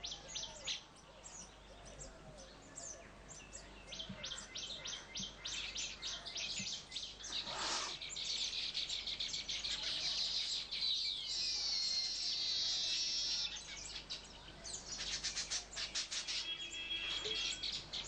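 Many small birds chirping rapidly in a dense, overlapping chatter, typical of a baya weaver colony, with a longer buzzy trill about two thirds of the way in.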